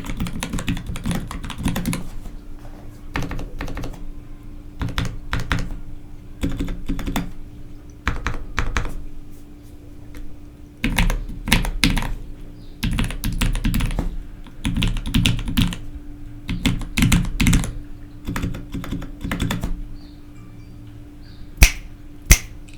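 Custom Space 65 mechanical keyboard with Gateron FEI switches and GMK Jamon keycaps being typed on in quick bursts of keystrokes with short pauses between. The typing stops a couple of seconds before the end, followed by two loud single clacks.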